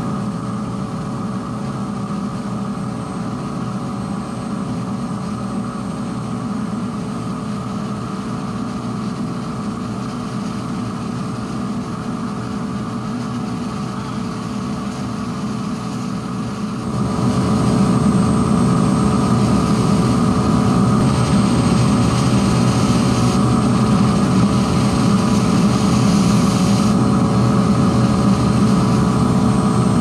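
Micro steam boiler running on low: its burner and blower run steadily while steam jets hiss out of the outlet pipe. About halfway through, the sound steps up and gets louder.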